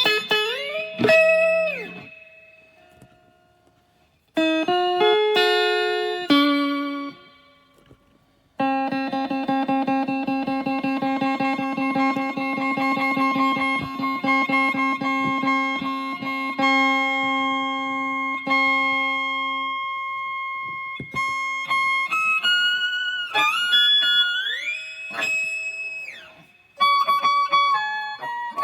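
Electric guitar playing solo, with bent and sliding notes. It pauses twice to let notes ring out and fade. About eight seconds in comes a long run of fast repeated picked notes, and near the end it returns to bends and slides.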